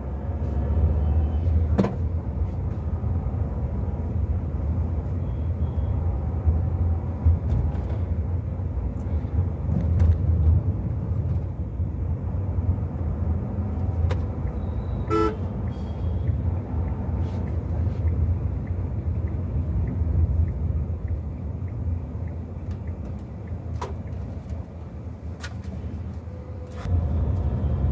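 Inside the cabin of a Tata Bolt hatchback on the move: a steady low rumble of its 1.2-litre petrol engine and tyres. A brief car horn honk from traffic sounds about halfway through.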